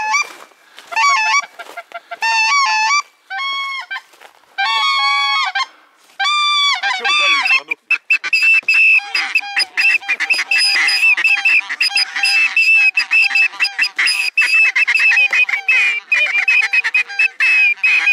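Wild geese honking: a few separate calls at first, then, about eight seconds in, a whole flock calling at once in a dense, continuous chorus.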